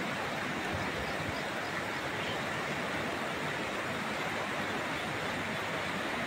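Steady rushing of a muddy river in spate after heavy rain, with rain falling.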